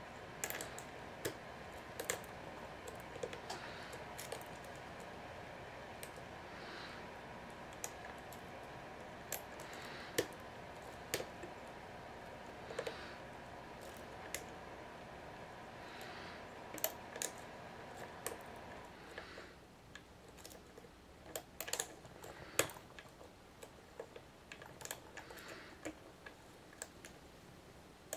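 Lock pick working the pins of a Master Lock No. 570 padlock under a tension wrench: irregular small metallic clicks and scrapes, a few sharper ticks among them. A faint steady hum in the background stops about two-thirds of the way through.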